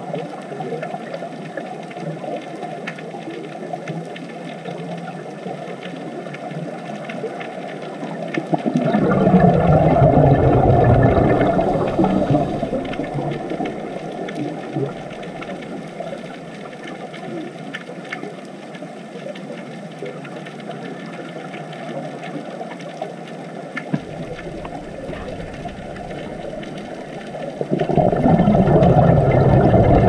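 Underwater recording of scuba regulator bubbles: a steady hiss, broken twice by a loud, low rush of bubbling as a diver exhales, about 9 s in and again near the end.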